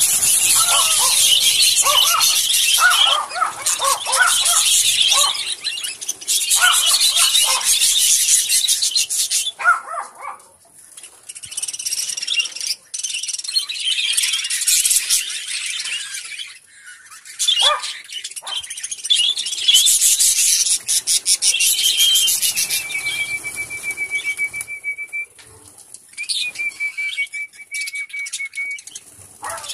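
A flock of budgerigars chirping and chattering in dense, loud stretches with brief lulls. Near the end a rapid, even trill rings out twice, each lasting a couple of seconds.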